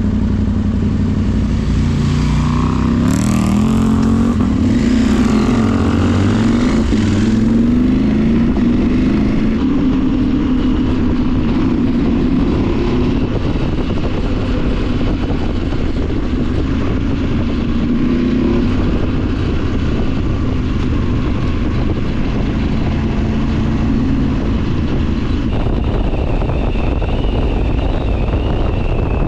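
KTM Adventure R's parallel-twin engine under way, its pitch rising and falling with the throttle over the first several seconds, then holding steadier, over a constant rush of wind and road noise.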